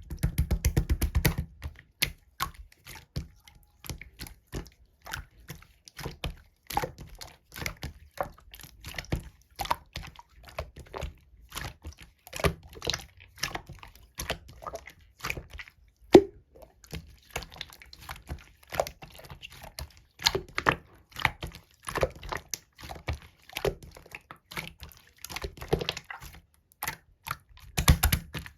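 Mixed slime being squished and pressed by hand: an irregular run of small clicks and pops, with one sharper click partway through.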